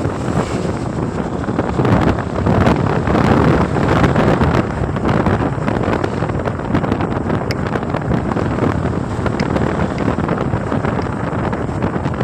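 Wind noise on the microphone over the steady running noise of a moving vehicle, with many small clicks and taps in the noise.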